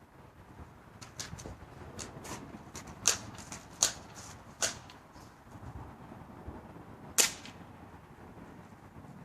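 A BB gun fired several times: a string of sharp snaps and clicks, the four loudest about three, four, four and a half and seven seconds in.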